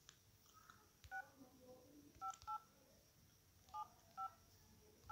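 Smartphone dialer keypad playing DTMF touch tones as a phone number is tapped in: five short two-note beeps, one about a second in, then two quick pairs, with another starting at the end.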